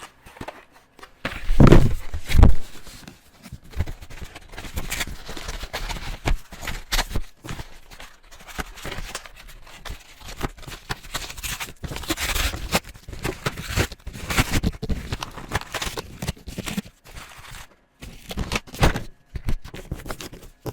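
Colouring on paper: a pen tip scratches across the page in rapid, irregular strokes. Two louder knocks come about two seconds in.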